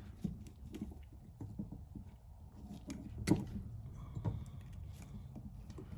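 Faint handling noise of gloved hands and needle-nose pliers bending a thin wire into a hook: soft rustling and light clicks, one sharper click about three seconds in, over a low steady hum.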